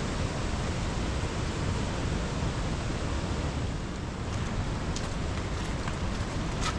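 Steady hiss of heavy rain. A few sharp taps or knocks come through in the last couple of seconds.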